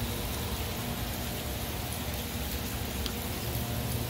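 Steady rain falling, an even hiss and patter, with a faint steady drone of distant machinery underneath.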